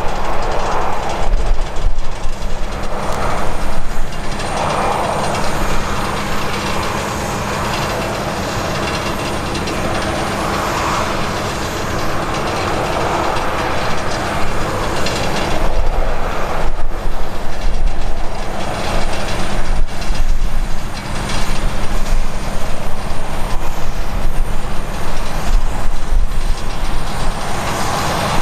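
Airbus A320-214's CFM56-5B jet engines running as the airliner rolls along the runway after landing: a loud, steady rushing roar with a constant low hum and a faint high whine. It is smoother and slightly quieter for a while in the middle.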